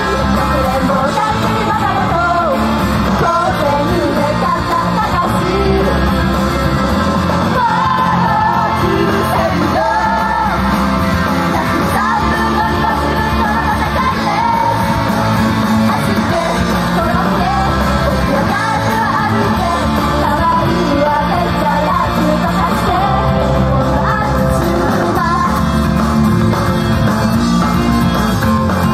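A loud, up-tempo idol rock song performed live, with the members singing over the backing music and shouting along.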